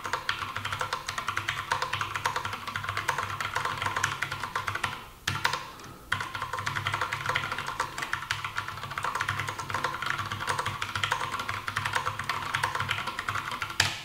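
Fast two-handed typing on a System76 Launch mechanical keyboard with tactile Kailh Box Royal switches in a heavy aluminium case: a dense run of keystroke clacks, with a brief pause about five seconds in.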